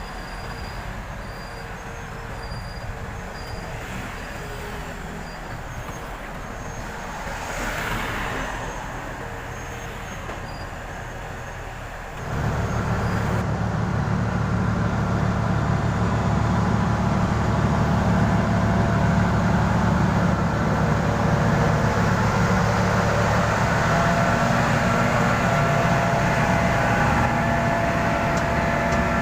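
Heavy diesel road-construction machinery at an asphalt milling job: a steady moderate mechanical and traffic-like hum with a brief swell about eight seconds in, then, about twelve seconds in, an abrupt switch to a much louder, steady low diesel rumble that holds.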